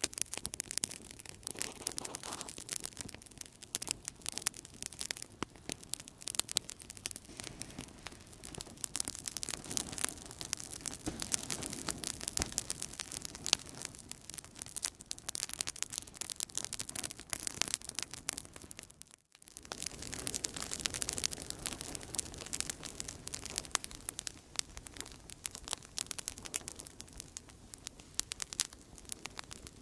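Outdoor campfire crackling: dense, irregular pops and snaps over a steady hiss and a soft low rumble of flame. The sound cuts out for a split second about two-thirds of the way through.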